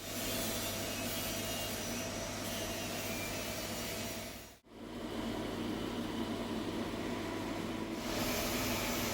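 Steady hiss and hum of duplex stainless pipe welding, dropping out briefly about halfway through and a little louder near the end.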